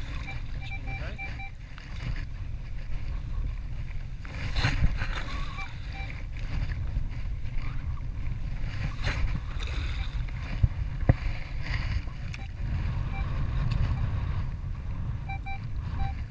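Minelab Equinox 600 metal detector giving short target beeps at two pitches: a few near the start, a couple around six seconds in, and a quick run near the end. Under them, wind rumbles steadily on the microphone, with a few louder knocks.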